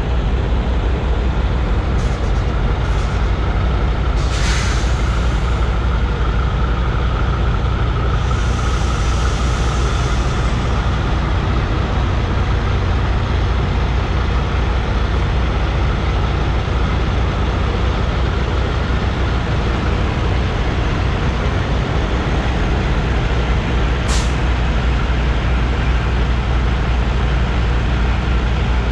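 Semi truck's diesel engine running as the tractor-trailer creeps along at low speed, a steady low rumble. A short hiss of air about four seconds in, a faint steady whine for several seconds after it, and a briefer hiss late on.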